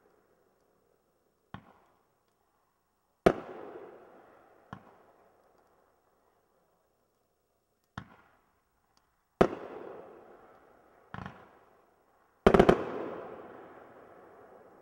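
Consumer aerial fireworks firing: three times over, a quieter launch thump is followed about a second and a half later by a loud bursting bang, the last burst a quick cluster of bangs. Each report trails off in echoes.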